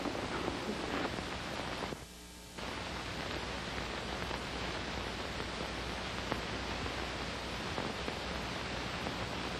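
Steady hiss and low hum of an old sound recording, with no speech. The hiss drops out briefly about two seconds in.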